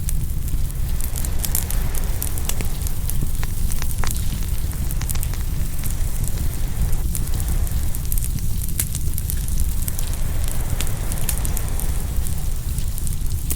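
Open wood fire crackling, with many sharp pops scattered throughout, over a steady low rumble.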